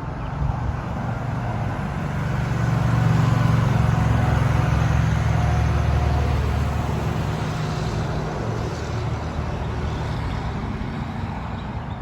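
Road traffic: a vehicle passes, its engine rumble and tyre noise building about two seconds in, loudest a few seconds later, then fading away.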